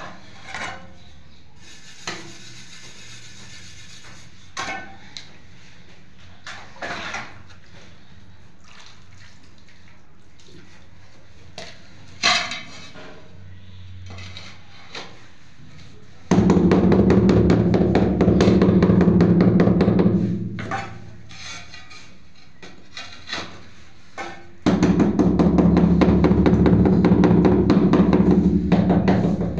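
Floor tiles being set in mortar: a few scattered light knocks and taps as tiles are placed, then two spells of loud, steady buzzing with a rapid rattle, each about four seconds, about halfway through and near the end, as a tile is worked down onto the mortar bed.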